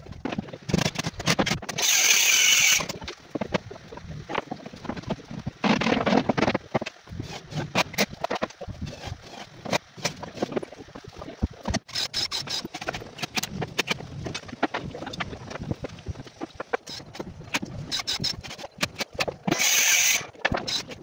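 Knocks, bumps and scrapes of a plywood wardrobe carcass and loose boards being handled and tipped over, with two brief hissing bursts, about two seconds in and near the end.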